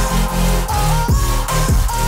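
Background electronic music with a deep bass beat, hits that drop steeply in pitch, and a melody that slides between notes.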